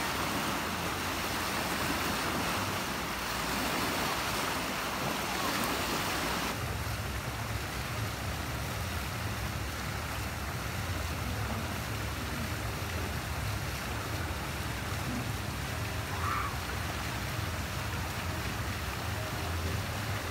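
Churning, splashing water of a wave river. About six seconds in it changes abruptly to a deeper, steady rush of water pouring out of a water slide's outlet into a pool.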